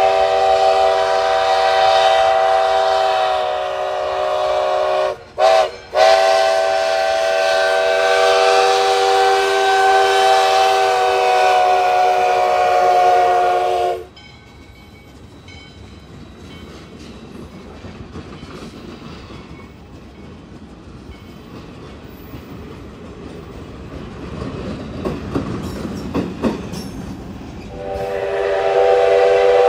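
Multi-note chime steam whistle of ALCO 4-6-2 locomotive No. 148 blowing a long blast. It dips briefly about five seconds in and sags in pitch as it closes. After that, the train rolls past at lower level with clicking wheels on the rail joints. Near the end the whistle sounds again.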